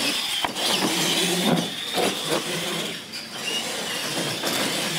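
Radio-controlled monster trucks racing on a concrete floor: a high motor whine with tyre noise, and a few knocks as the trucks bounce and land.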